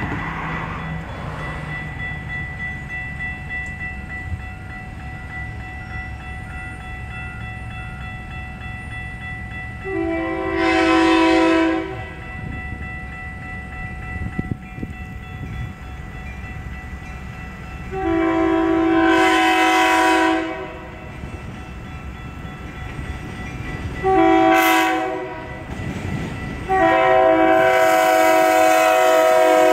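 Metra commuter train sounding its horn in the grade-crossing pattern: two long blasts, a short one, then a long one held as the train reaches the crossing. The crossing signal's bell rings steadily underneath.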